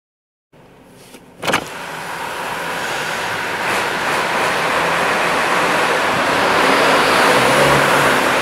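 Road and traffic noise heard from inside a moving car, with a Unimog truck running close alongside. After a single knock about one and a half seconds in, the noise swells steadily.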